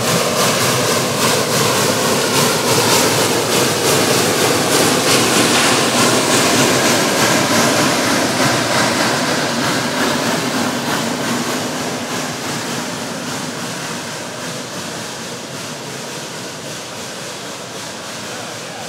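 Geared narrow-gauge steam locomotive working past with rapid, evenly spaced exhaust chuffs, loudest about six seconds in and then fading as it moves away.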